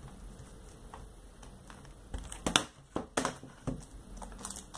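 Plastic CD jewel cases being handled and put down on a table: quiet at first, then a string of sharp hard-plastic clicks and knocks with some rustling of a plastic sleeve in the second half.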